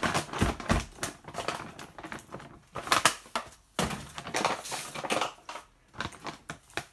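Gallon-size Mylar foil bag with sugar in it, crinkling and crackling as it is handled and its creases are pulled out so the sugar settles and packs down. The crackling is irregular, thicker about three seconds in and again past the middle.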